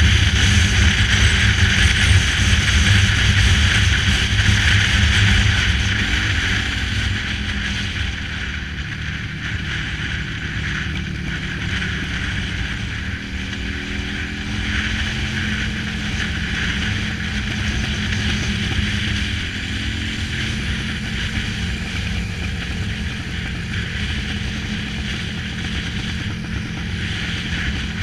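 Cruiser motorcycle engine running with wind rushing over the handlebar-mounted microphone while riding; the engine rumble and wind hiss both ease off after about six seconds and then hold steady.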